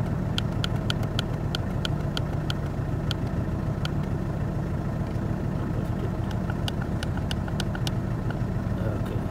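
Mercedes C220 engine idling steadily, with runs of short ticks at about four or five a second near the start and again later, sparse in the middle.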